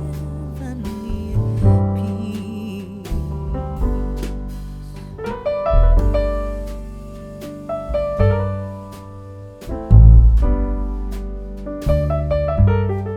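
Background music led by piano or electric keyboard, with chords and deep bass notes.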